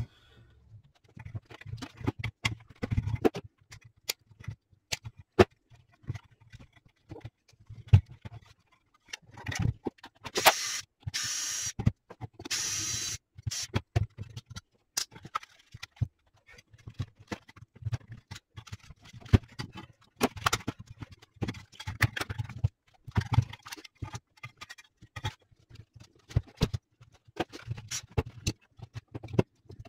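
Handling noise from taking apart a surge suppressor's metal case and board: scattered clicks, taps and knocks of metal parts and screws, with a few short scraping bursts partway through.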